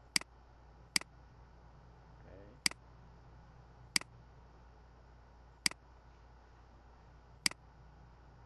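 Computer mouse button clicking six times at irregular intervals, each a short sharp click.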